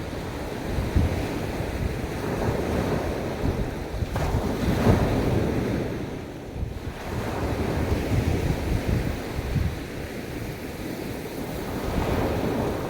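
Sea waves washing onto a beach, swelling about five seconds in and again near the end, with a brief lull between. Wind buffets the microphone throughout as a low rumble.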